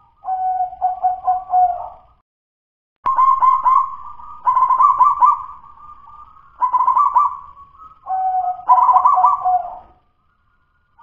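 Zebra dove (perkutut) cooing: about five phrases of rapid, trilled coo notes, each a second or two long, with short pauses between. It is a local bird whose song fanciers would still call 'dudut-nutut', not yet 'los'.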